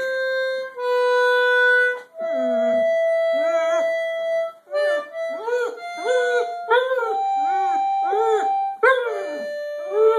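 Concertina playing held reed chords. About two seconds in, a dog starts howling along with it in a run of short rising-and-falling yowls, roughly two a second, over the sustained notes.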